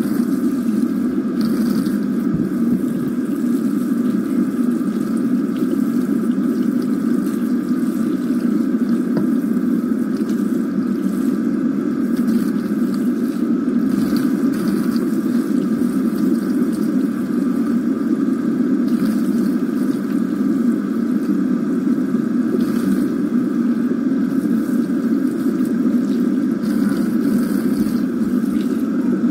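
Kitchen sink faucet running steadily, its stream pouring over hair being rinsed and splashing into the sink.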